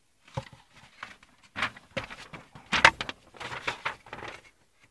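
Paper rustling and irregular clicks as a folded wiring-diagram sheet is handled, loudest a little before three seconds in.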